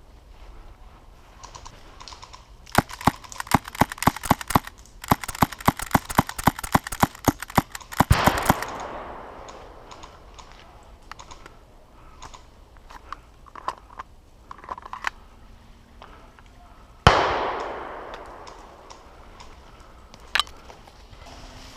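Suppressed Novritsch SSX23 gas airsoft pistol fired rapidly: some thirty sharp clicky shots in quick succession, in two strings with a short break. Two louder sudden bursts of noise that fade over about a second follow later.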